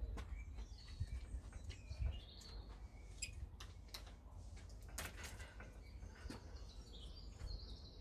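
Small birds chirping in short bursts, with scattered light clicks and taps from the satellite antenna's elements and cables being handled, over a low rumble.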